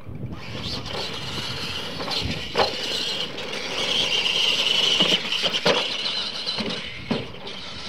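Electric RC monster trucks (Clod Buster-style) racing: a high motor and gear whine that builds to its loudest about four to five seconds in, broken by several sharp knocks as the trucks hit the track's ramps and bumps.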